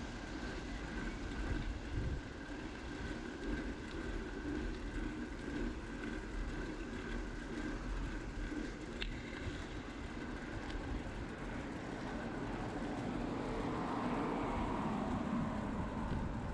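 Steady rush of wind and tyre noise from a bicycle rolling along an asphalt path, with motor traffic running alongside. A passing vehicle grows louder about three-quarters of the way through.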